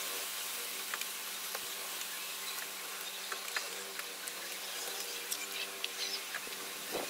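Homemade razor-blade circle cutter scraping around on a thin sheet as it cuts out a disc: a steady scratchy hiss with scattered small clicks, over a faint steady hum.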